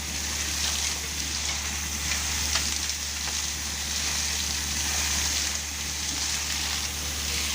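Steady hiss over a low, even hum, with a few faint clicks, from an air compressor running to blow out a deep well.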